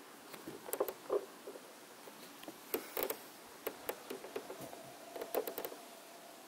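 Irregular small clicks and taps of fingers gripping and pressing down a plastic shark fin antenna shell to set its adhesive on a car roof.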